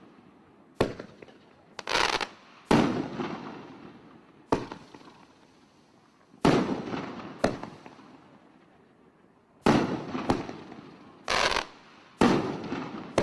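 Ghost Rider 500 gram fireworks cake (World Class) firing its shots: about ten sharp bangs at irregular spacing, launches and aerial breaks, each trailing off over a second or two, a couple of them short sustained blasts.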